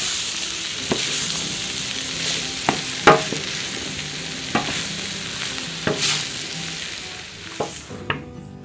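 Food sizzling in a hot frying pan as it is stirred, with a spoon clacking against the pan several times, once loudly about three seconds in. The sizzle stops abruptly near the end.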